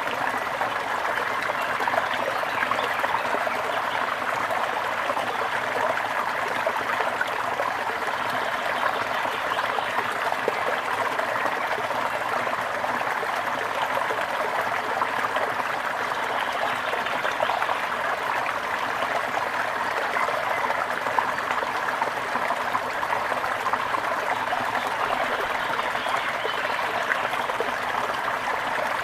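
Gentle river flowing, a steady, unbroken rush of water.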